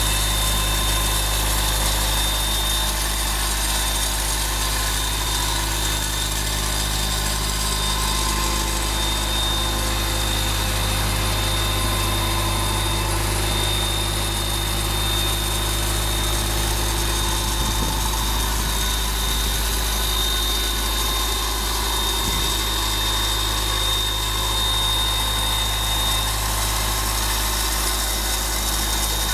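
The John Deere four-cylinder diesel engine of a 1997 Ingersoll Rand 185 portable air compressor idling steadily.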